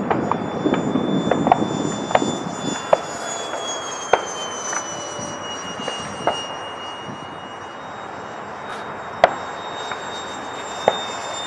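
70 mm electric ducted fan of a Parkzone Habu RC jet flying overhead: a high whine over a rushing hiss. The whine falls in pitch through the middle and rises again near the end. A few sharp clicks cut through, the loudest about nine seconds in.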